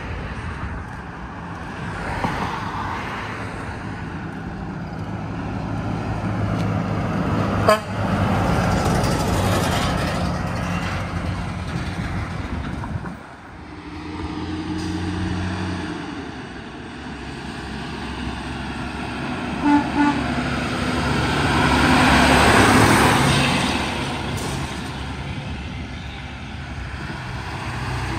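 Trucks driving past on a street, their engines running with a steady low drone. There is a sharp click about eight seconds in, and two quick horn toots about twenty seconds in, followed by a rush of passing-vehicle noise.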